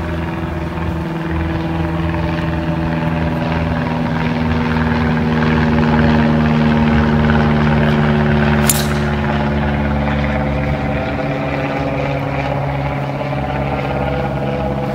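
A steady engine drone throughout, with one sharp crack about nine seconds in as a 3-wood strikes a golf ball off the tee.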